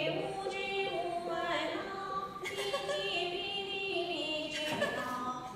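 Female Yue opera singing: a sustained melody in long held notes that step up and down, with stage accompaniment.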